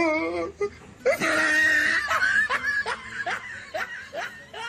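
A person laughing: a wavering laugh at first, then a run of short rising laughs about two a second that grow fainter toward the end.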